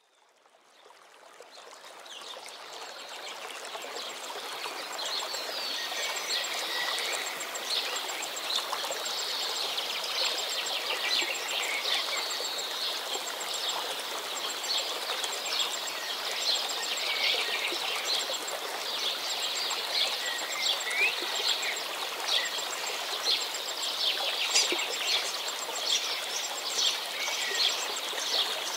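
Many birds chirping over a steady rushing hiss like running water, fading in over the first few seconds.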